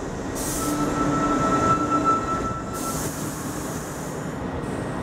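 R62A subway train braking to a stop, wheels and motors rumbling with a thin, steady squeal from about half a second in until about three seconds, and two short hisses.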